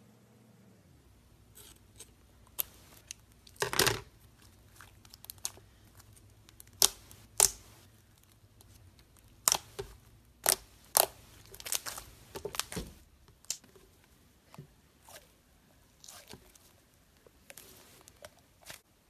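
A slime-filled balloon stress ball being snipped with scissors and its rubber skin torn open, then the slime squeezed and poked by hand. A run of sharp crackles and pops, loudest through the middle, with quieter squishing between them.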